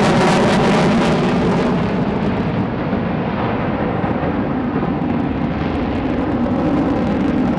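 Loud, steady jet roar from a USAF F-35A Lightning II flying its demonstration, with a deep rumble. The falling pitch just before settles into a sustained roar that rises again slightly near the end.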